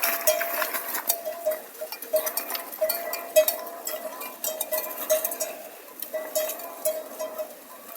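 Livestock bells on a grazing flock clanking irregularly, several strikes a second on one ringing tone, with many small clicks among them.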